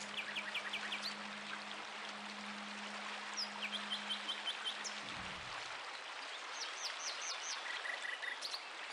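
Nature ambience: a steady hiss of running water, with several quick series of short, high chirping calls. A low held music note fades out about five seconds in.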